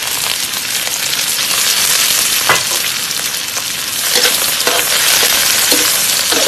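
Choy sum and chili stir-frying in a hot pan: a steady loud sizzle, with the spatula knocking against the pan a few times, once about two and a half seconds in and several times later.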